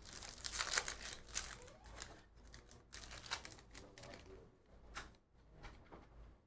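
Wrapper of a Bowman jumbo pack of baseball cards crinkling and tearing as it is ripped open, a dense crackle for about two seconds. After that come scattered soft clicks as the stack of cards is handled.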